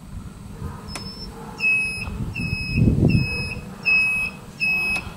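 Cricket RX-5 electric golf cart's turn-signal beeper: a high beep repeating evenly about three times every two seconds, starting shortly after a switch click about a second in.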